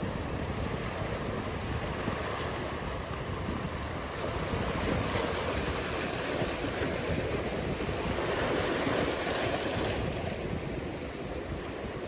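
Ocean surf: a steady wash of breaking waves that swells louder about halfway through, then eases.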